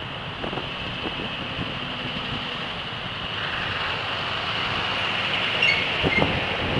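Scania V8 truck engines running as the trucks pull away, growing louder from about halfway through as one draws near. A few sharp clatters follow near the end.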